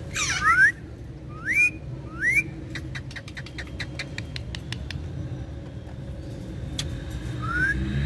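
Indian ringneck parakeets calling with short rising whistles, several in quick succession in the first couple of seconds and one more near the end. In between comes a run of quick sharp clicks.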